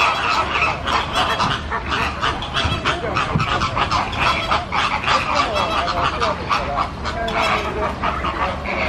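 A flock of American and greater flamingos calling, many short calls overlapping without a break.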